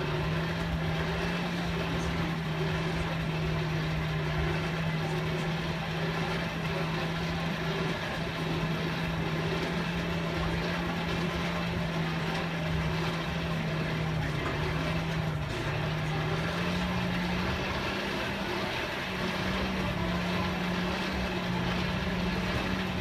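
A motor or engine runs with a steady hum, its pitch stepping up slightly about two-thirds of the way through, over a steady background noise. No hammer strikes are heard.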